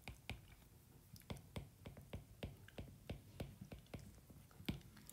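Stylus tips tapping and scratching on a tablet's glass screen while handwriting: faint, irregular clicks, a few a second.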